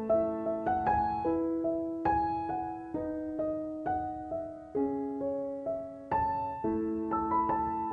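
Background piano music: a slow, gentle melody over soft chords, notes struck and left to ring.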